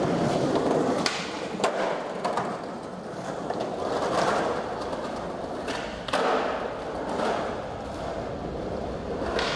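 Skateboard wheels rolling over a smooth tiled floor, the rolling noise swelling and fading, with a few sharp clacks from the boards. The loudest clack comes about six seconds in.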